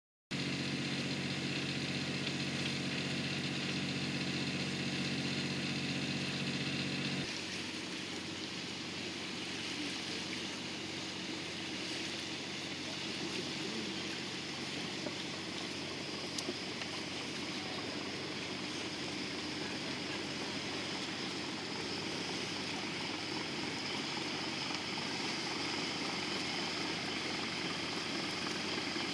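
A boat's engine running steadily under a wash of water and wind noise. A low, pitched engine hum is strong at first and drops away suddenly about seven seconds in, leaving an even noise with a faint engine drone.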